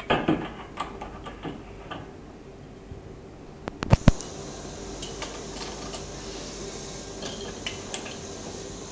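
Metal clamp parts being handled and fitted onto a motorcycle fork workstation: light clicks and clinks, two sharp metal knocks about four seconds in, then a steady faint hiss with a few small ticks.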